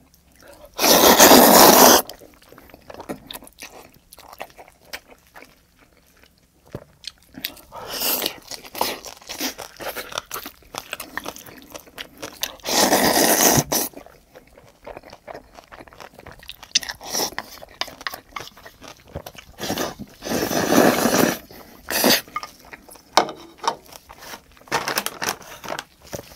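A person slurping spaghetti noodles in tomato sauce, three loud slurps about a second long each, with wet chewing and smacking in between.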